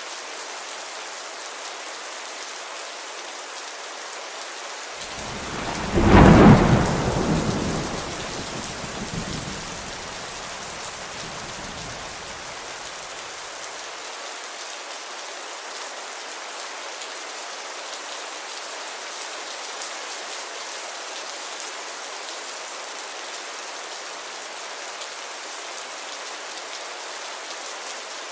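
Steady rain falling, with a loud clap of thunder about six seconds in that rumbles away over the following several seconds.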